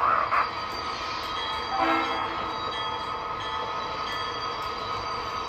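O scale model diesel locomotive's onboard sound system playing a steady diesel engine rumble, with a short horn note about two seconds in.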